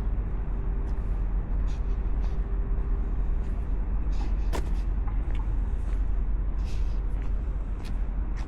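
Outdoor urban ambience: a steady low rumble with scattered short clicks and taps, and a faint steady hum that stops about three and a half seconds in.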